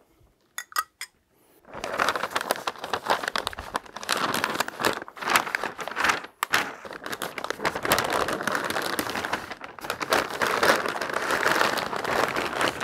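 Stiff butcher paper crinkling and rustling steadily as it is folded tightly around a whole goose, starting after a couple of seconds, with a few light clicks just before.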